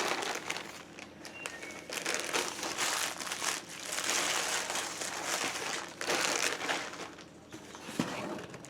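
Packaging crinkling and rustling in several spells as a gift package is handled and unwrapped.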